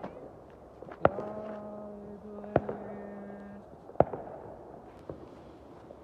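Fireworks exploding overhead: three sharp bangs about a second and a half apart, then a weaker one.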